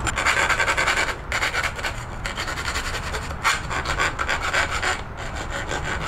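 Round file rasping back and forth on the freshly cut end of a Marzocchi Bomber Z1 fork's steerer tube, deburring it after the angle-grinder cut. It comes as repeated long strokes with brief pauses between them.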